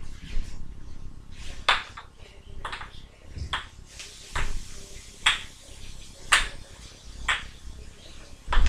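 Wooden kendama ball landing on the cups and spike of the ken: about eight sharp clacks, roughly one a second, as tricks are played.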